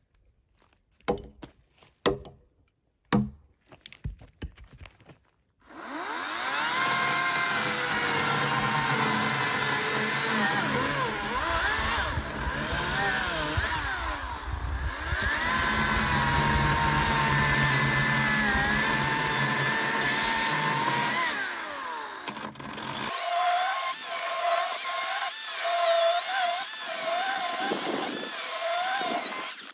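A few short knocks, then, about six seconds in, a Ryobi cordless electric chainsaw starts cutting through a log: a steady motor whine over the chain chewing wood. Near the end the whine wavers up and down in pitch as the cut goes on.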